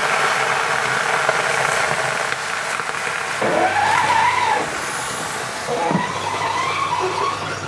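Water sprayed into a very hot oven, hissing steadily as it flashes to steam on a casserole of hot lava stones; this steam keeps the bread rolls from crusting too early. Twice in the second half a whistling tone rises and falls over the hiss.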